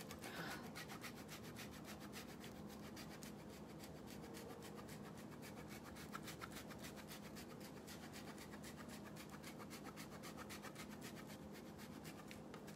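Block of Parmesan cheese rubbed quickly back and forth over a handheld metal flat grater: a faint, fast, continuous scraping.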